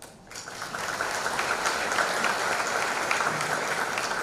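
An audience applauding, starting a moment in and holding steady.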